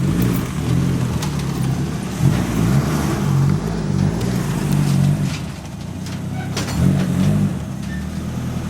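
Nissan 240SX's turbocharged SR20DET four-cylinder engine at low revs, revving lightly up and down as the clutch is slipped to creep the car forward, settling to a steadier idle near the end.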